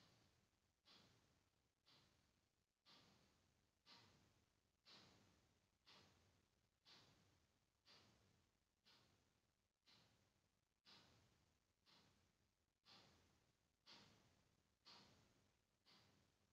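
Near silence: a very faint hiss that starts sharply and fades away, repeating about once a second.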